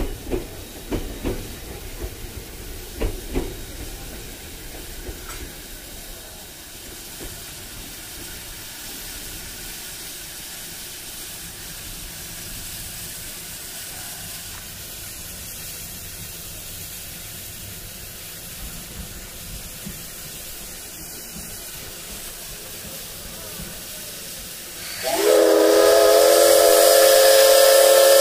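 C58 363 steam locomotive standing at the platform with a steady quiet hiss of steam. About 25 seconds in, its steam whistle starts a loud, long blast of several tones sounding together, still going at the end.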